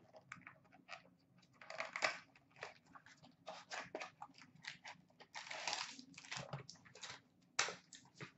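Hockey card box being opened by hand: cardboard and wrapper packaging rustling and crinkling as the packs are pulled out, a string of short crackles that grows denser just past halfway.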